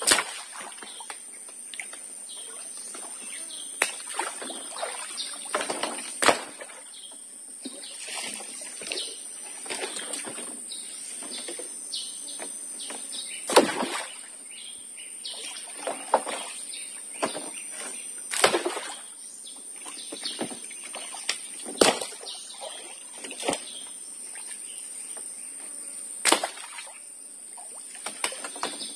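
A long stick slapped down on the river surface every few seconds, each time a sharp splashing smack, over a steady high insect drone with bird calls in between.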